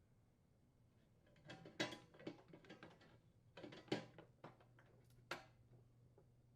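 Faint clicks and taps from fitting a metal spacer bar to a cabinet's bottom trim and securing it with screws. They come in two short clusters, with a single tap near the end.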